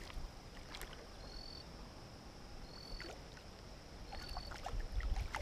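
Hooked carp splashing and thrashing at the pond's surface close to the bank, with water sloshing. A short high whistle repeats about every second and a half.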